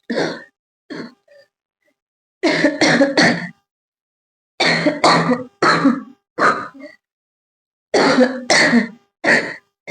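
A person coughing on purpose, forced coughs in quick groups of one to three, about a dozen in all, with silent gaps between the groups.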